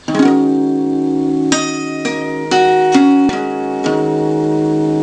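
Cutaway acoustic guitar fingerpicked: single notes plucked one after another, about seven in all, each ringing on under the next.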